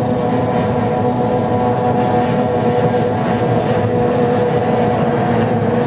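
Racing outboard hydroplane engine running flat out on the water, holding a steady, unchanging engine note.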